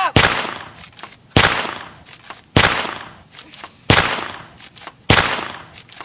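Five shotgun-blast sound effects, one about every 1.2 seconds, each dying away in a long echoing tail, with a lighter click between blasts. The shots go with a toy pump-action shotgun and are not real gunfire.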